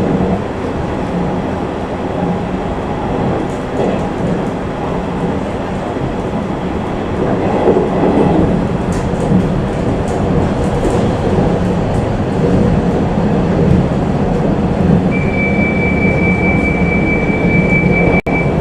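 A 485 series electric train running, heard from inside the car: a steady rumble of wheels on rail and running gear. A thin, steady high squeal comes in about three quarters of the way through.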